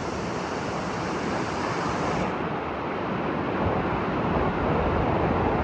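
Hebbe Falls waterfall: a steady rush of falling water, with some wind on the microphone.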